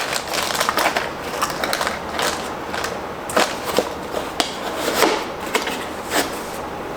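Handling noise: scattered small clicks and light knocks with rustling as a small metal cover plate is packed away.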